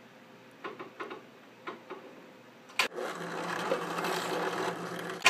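A few light handling knocks, then a drill press switches on with a click about three seconds in. Its motor runs steadily while the bit drills through the plastic hoop tubing and the polycarbonate connector inside it, ending in a sharp knock near the end.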